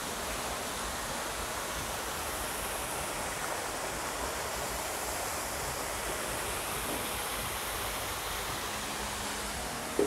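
Steady, even rushing hiss of outdoor evening ambience with no distinct events.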